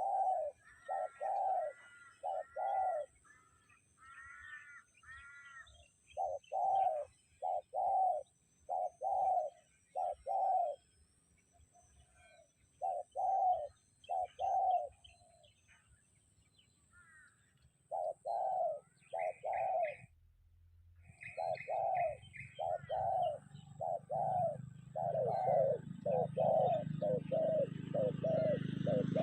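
Wild birds calling: one bird repeats short, low notes in runs of three or four, while another gives higher chirping notes at times. A low rumble builds over the last few seconds.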